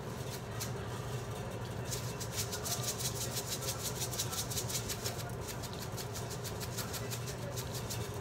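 Sesame seeds shaken from a shaker jar over the chicken: a fast run of light rattling ticks from about two seconds in until about six seconds, over a steady low hum.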